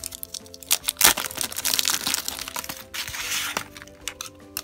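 Clear plastic wrapper crinkling and crackling as it is peeled off a small hard-plastic toy house, with sharp clicks from handling.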